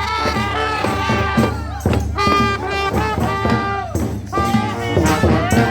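Honk-style street marching band playing: brass horns over percussion and a steady bass line, with notes sliding up and down in pitch.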